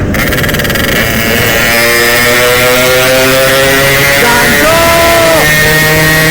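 Two-stroke Yamaha RX-King motorcycle engine running hard under acceleration, its pitch climbing steadily, rising sharply about four seconds in, holding briefly at high revs and then falling back about a second later.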